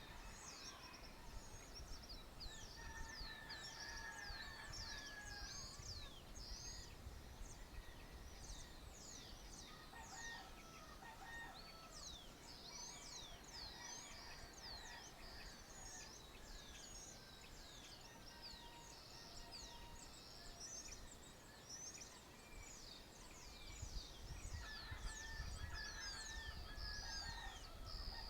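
Dawn chorus in the countryside: many small birds chirping continuously in quick, high, down-slurred notes, with lower, longer bird calls now and then. A low rumble under it gets louder near the end.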